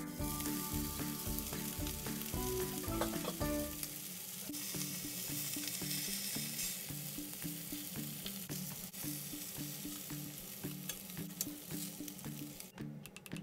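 Food sizzling in a hot pan, loudest for the first half and then dying down, over background music.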